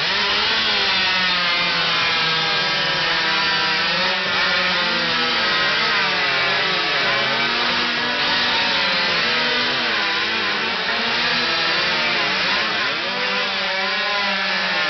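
Chainsaw engine running steadily, its pitch rising and falling as the throttle is worked.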